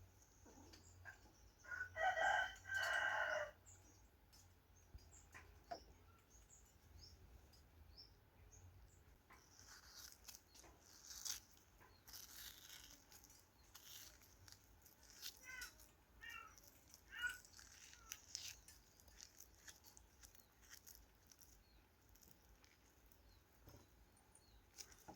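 A rooster crowing once, about two seconds in, in two loud pitched parts. Faint short chirps follow later.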